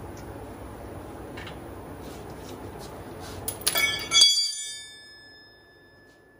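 Steel wrenches clanking against metal a few times about three and a half to four seconds in, ringing like a struck bell and fading over a second or two. Under it a steady background noise runs and stops abruptly at about the same moment.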